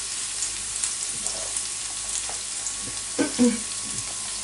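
Spring onions sizzling gently in olive oil in a nonstick frying pan, a steady soft hiss with small crackles, while a wooden spoon stirs and scrapes them; a short louder knock about three seconds in.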